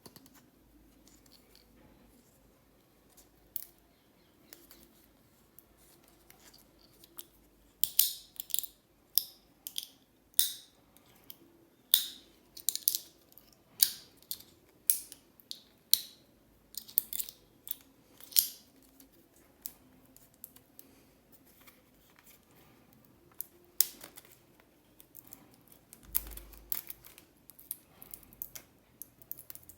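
Scissors cutting into packaging in a series of sharp snips, about one a second for some ten seconds, then scattered lighter clicks and handling noises.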